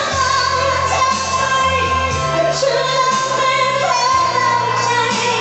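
Female vocalist singing a pop ballad live through a microphone and PA, holding long notes over backing music.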